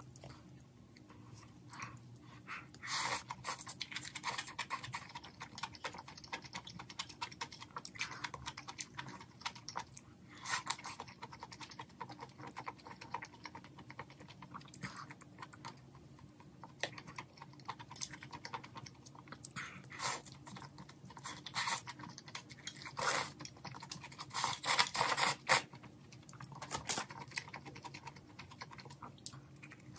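Close-miked eating of malatang noodles and a potato-coated Korean hot dog: chewing and slurping with wet, clicking mouth sounds that come in short spells every few seconds.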